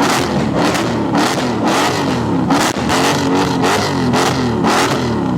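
Mercedes C63 AMG V8 with an iPE valved exhaust revved in quick repeated blips, about two a second, the pitch rising and falling with each one and a sharp crack at each peak.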